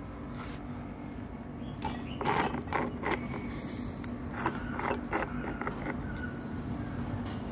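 Ring-pull tins of cat food being opened by hand: a run of sharp metal clicks and scrapes as the tabs are lifted and the lids peeled back, bunched between about two and five seconds in.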